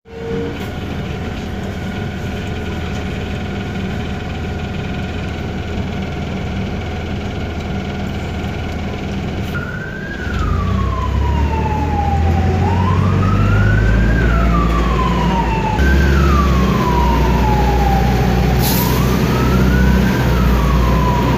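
An emergency-vehicle siren starts about halfway through, wailing slowly up and down. It sits over the steady drone and low rumble of a city bus's engine, and the rumble gets louder as the siren starts.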